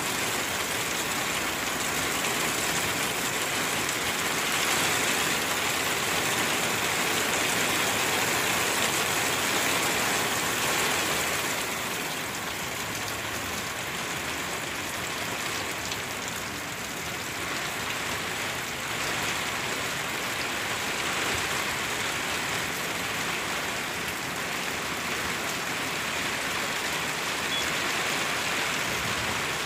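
Heavy rain pouring steadily, a dense, even hiss of drops on pavement and surfaces. It eases a little about twelve seconds in.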